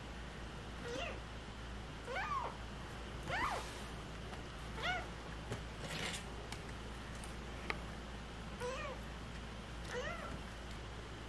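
Young kitten mewing repeatedly: about six short, high-pitched mews, each rising and falling in pitch, spaced a second or more apart.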